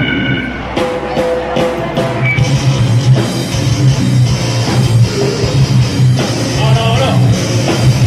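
Slam and brutal death metal band playing live, with heavily distorted guitars, bass and drum kit at high volume. A few sharp hits come in the first two seconds, then the full band comes in together about two seconds in and keeps going.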